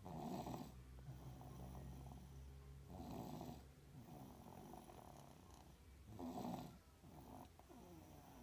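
A baby snoring in sleep while congested with a bad cold. Three louder rasping snores come about three seconds apart, with quieter breaths between them.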